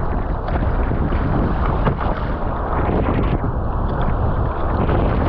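Wind buffeting the microphone over water rushing and splashing around an Epic V7 surfski's hull and paddle blades as it is paddled through chop.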